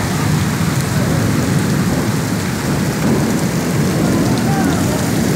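Heavy rain pouring onto wet pavement: a steady, dense hiss with a low rumble underneath.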